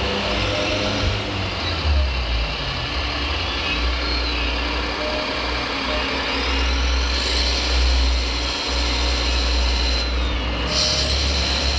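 Radio-controlled MAN tipper truck's simulated diesel engine sound running steadily as the loaded model drives over the dirt track, with a rising high whine about two-thirds of the way through and a short hiss near the end.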